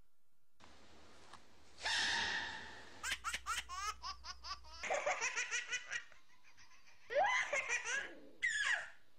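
A short burst of noise about two seconds in, then a baby laughing in quick, repeated bursts of giggling belly laughs. There is a pause just after six seconds before a last run of laughs near the end.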